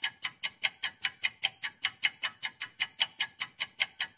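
Ticking-clock sound effect on its own: a fast, even tick, about six ticks a second, with nothing else heard behind it.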